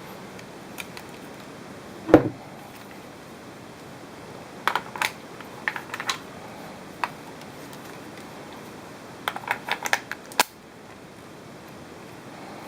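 Pistol-grip head being handled: a single knock about two seconds in, then groups of sharp clicks and taps from its controls and parts, over a steady hiss.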